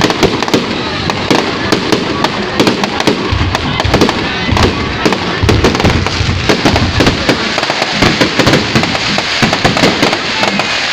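A fireworks display with continuous rapid crackling and popping, many sharp cracks a second without a break.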